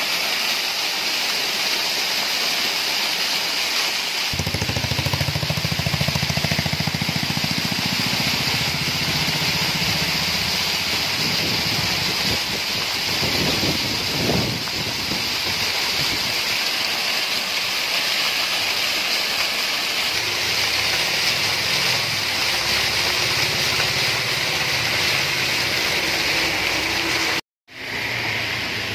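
Floodwater rushing down a rocky cascade, a steady loud hiss of falling and splashing water, with a deeper rumble added from about four seconds in. The sound breaks off for a moment near the end.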